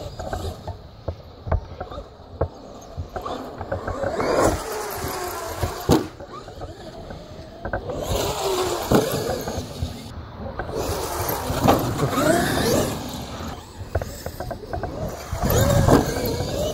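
Electric RC trucks driving hard, their motors whining up and down in pitch with the throttle. Scattered knocks and clatter come from the trucks hitting and landing on the ground.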